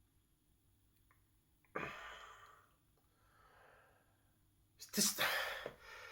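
Mostly near silence, broken by two breaths from a person: a short one about two seconds in and a louder, longer breathy exhale about five seconds in.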